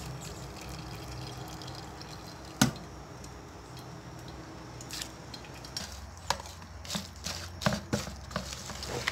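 Cooked fruit pulp being pressed in a kitchen sieve to squeeze out its juice: quiet squishing and dripping of liquid. There is one sharp knock about two and a half seconds in, and lighter clicks and taps in the last few seconds.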